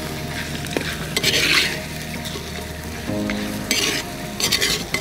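Spiced chicken masala being stirred in a clay kadai, the ladle scraping through it in a few strokes while it sizzles in the pot.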